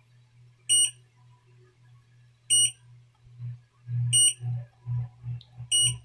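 Four short, high electronic beeps about 1.7 s apart from a mini bucket washing machine's control board, an alarm the repairer thinks is its protection tripping. Under them, from about halfway, the low hum of its motor pulses on and off as it starts and stops.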